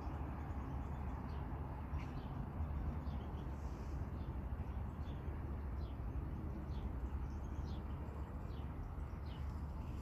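Small birds chirping in short, high, falling calls, about one or two a second, over a steady low rumble.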